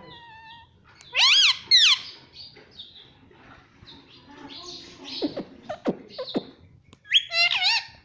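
Indian ringneck parakeet calling in short, high notes that rise and fall. There are two loud calls about a second in, softer chatter in the middle, and a quick run of calls near the end.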